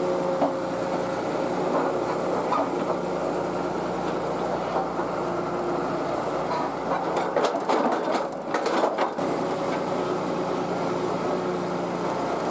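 Tata Hitachi EX200 LC excavator's diesel engine running steadily, with a cluster of sharp knocks and clatter about seven to nine seconds in.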